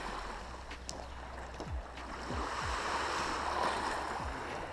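Small waves lapping on a pebble shore: a steady wash of water from a nearly flat sea that swells about three seconds in.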